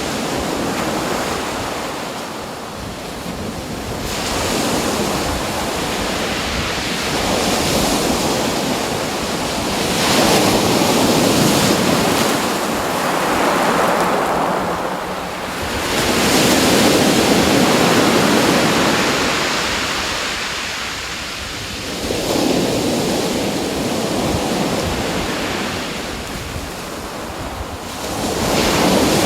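Ocean waves breaking and washing in, the rush of water swelling and easing every few seconds.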